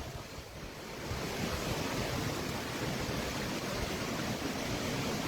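Steady rushing wind with low buffeting on the microphone, rising a little about a second in.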